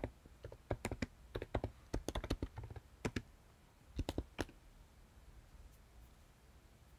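Typing on a computer keyboard: quick keystrokes in several short bursts, stopping about four and a half seconds in.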